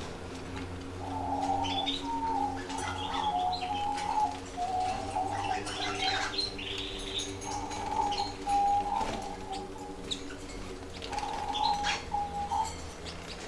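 Caged canaries chirping and warbling in repeated short phrases. The birds are coming into breeding condition.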